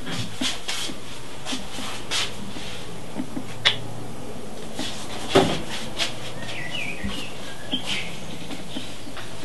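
Steady low hum of room tone with scattered knocks and handling clicks as a plastic deodorant stick is picked up and carried, the sharpest two about halfway through. Near the end come a few short bird-like chirps.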